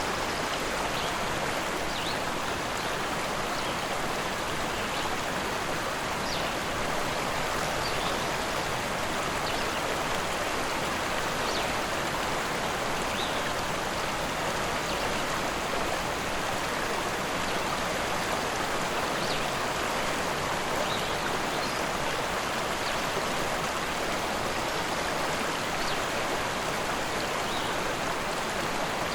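Rushing river water running steadily over rocks, an even, unbroken rush.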